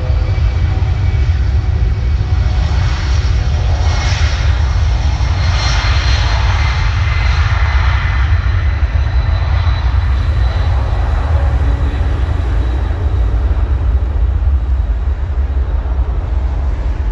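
Boeing C-17 Globemaster's four turbofan engines during departure. A deep, steady rumble runs throughout, with a swell of jet roar and faint whine that peaks around four to eight seconds in and then eases off.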